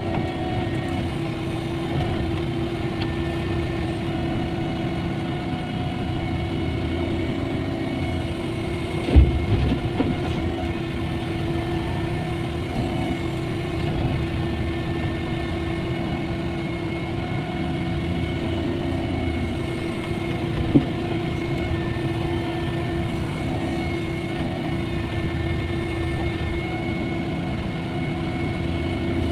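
Cat 305.5E mini excavator's diesel engine running steadily, with a sharp knock about nine seconds in and another about twenty-one seconds in.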